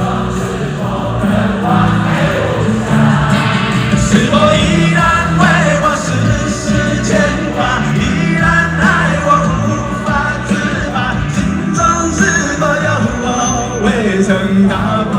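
Loud live rock ballad with a male lead singer and a crowd singing along over the backing track.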